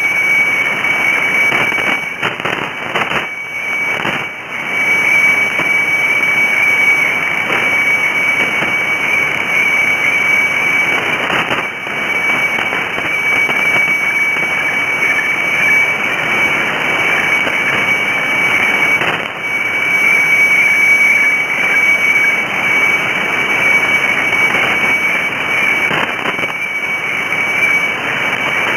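Shortwave radiofax weather-chart signal from Bangkok's HSW64 station on 7395 kHz, received in single sideband: a steady high tone (the fax's white-level tone) over heavy static hiss. The signal briefly fades a few times.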